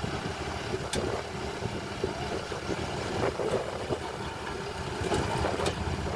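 Diesel engine of heavy earthmoving machinery running steadily, with a single sharp click about a second in.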